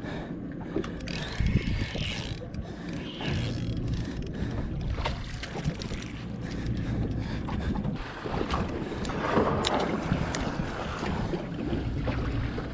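Fishing-boat ambience: a low steady hum with wind on the microphone and water noise, and scattered light clicks and knocks from the boat and tackle.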